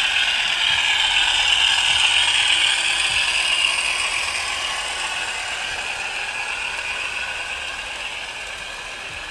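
OO gauge Hornby Class 50 model diesel train with a Howes DCC sound chip running along garden track: a steady mechanical rattle of the train and its sound-chip engine. It fades over the second half as the train moves away.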